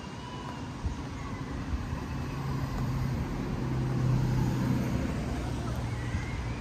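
A motor vehicle driving past on the street: a low, steady engine hum that swells to its loudest about four seconds in and then fades, over general street background noise.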